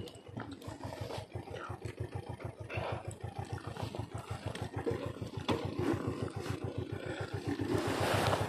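Motorcycle engine running at low revs with an even putter of about nine beats a second as the bike moves slowly over a rough, stony dirt track.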